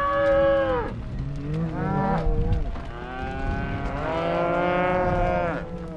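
Cows mooing: one call trailing off about a second in, a shorter one around two seconds, then one long call from about three seconds until near the end, over a steady low rumble.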